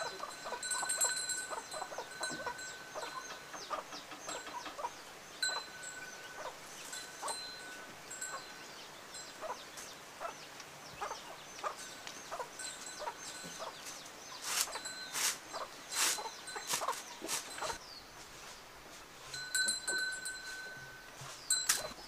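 A flock of chickens clucking while they feed, with many short ticks and a high ringing tone that comes and goes. A run of louder sharp clicks comes about two-thirds of the way in.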